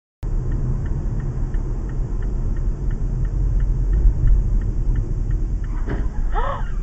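Car cabin noise picked up by a dashcam as the car slows: a steady low rumble of engine and road, with faint regular ticking of about two clicks a second, such as a turn-signal indicator makes. Near the end comes a short rising-and-falling sound like a voice.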